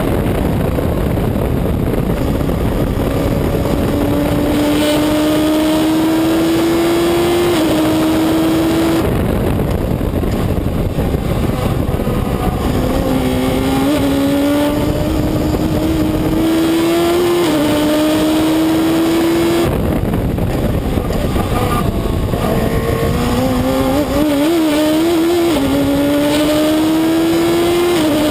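Reynard Inverter's motorcycle-derived four-cylinder engine at full throttle, heard from the open cockpit: the pitch climbs through each gear and drops sharply at each quick upshift. Three times the engine lifts off for a few seconds for braking into corners, then pulls hard again, with wind rush throughout.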